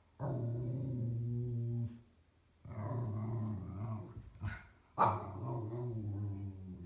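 American Eskimo Dog growling: three long, low growls of about a second and a half each, the third breaking in suddenly and loudest. It is a wary growl at something on the stairs that the dog is unsure of.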